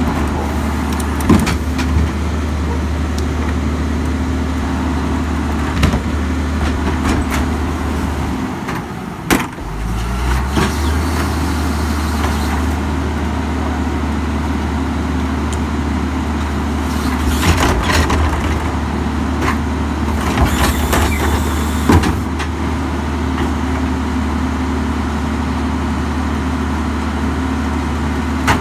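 Crane Carrier garbage truck's diesel engine running steadily behind a Leach rear-loader packer while the hydraulic cart tippers lift and dump wheeled trash carts, the engine note dipping briefly and picking up again about nine seconds in. Sharp knocks of the plastic carts banging against the tipper and hopper come several times.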